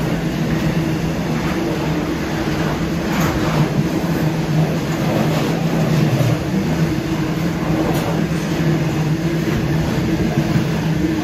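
Freight train's hopper wagons rolling past at speed: a steady rumble of steel wheels on rail with a low hum, and a few sharper clicks as wheels cross rail joints.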